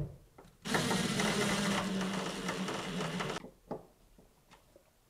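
DeWalt 12V cordless impact driver running for about three seconds, driving in a GFCI receptacle's mounting screw, then stopping; a few light clicks follow.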